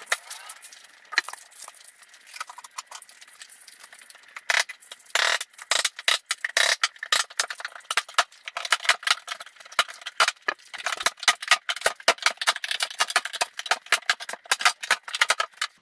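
Hand tools working on a plywood shipping crate: a hammer and metal clicking and knocking against the wood and fasteners. Thin, sharp clicks come scattered at first, then in a very rapid run from about four and a half seconds in.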